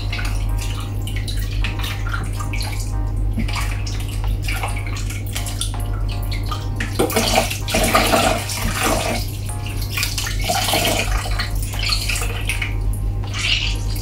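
Water sloshing and splashing in a bowl as hands wash and squeeze pieces of raw kingfish, with the loudest splashes a little past the middle.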